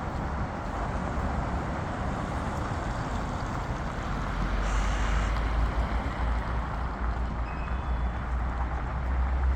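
Steady low rumble with a noisy hiss of outdoor background sound, with no distinct events standing out.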